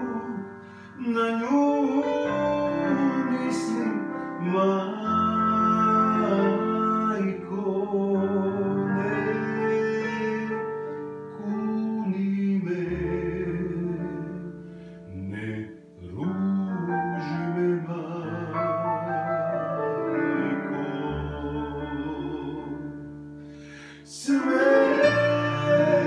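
A man singing with wide vibrato, holding long notes, to upright piano accompaniment. The voice drops out briefly twice and comes back with a loud held note near the end.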